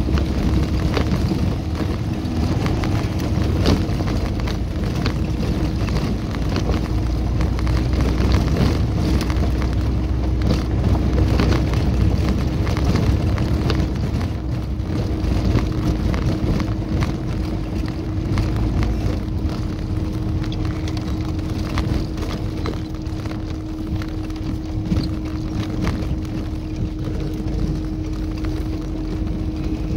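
Tofaş Kartal car driving over a rough dirt track, heard from inside the cabin. The engine runs with a steady hum under a low road rumble, and the body knocks and rattles over the bumps.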